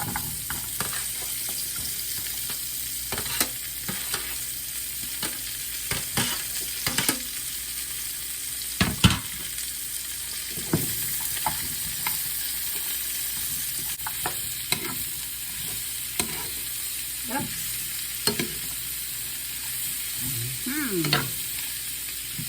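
Carrots and celery sizzling in hot oil in a wok as they are stir-fried, with a steady hiss and irregular clicks and scrapes of a spatula against the pan, the loudest knock about nine seconds in.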